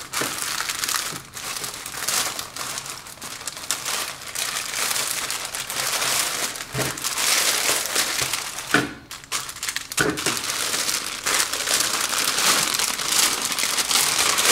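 Paper and plastic wrapping crinkling and rustling as a new jersey is unwrapped by hand, nearly continuous with a short lull about nine seconds in.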